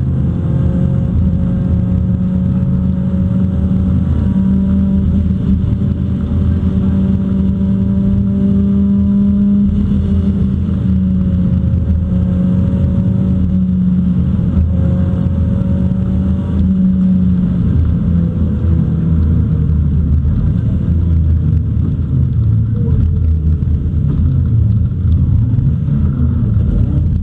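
Rally car's engine running at speed, heard from inside the cabin over road and tyre noise. The engine note holds fairly steady through a long stretch, then rises and falls more in the last third.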